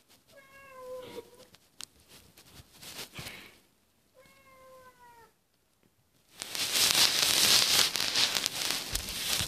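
Domestic cat meowing twice at a closed door, wanting it opened: two meows about a second long, each falling slightly in pitch, a few seconds apart. For the last three seconds a louder rustling noise covers everything.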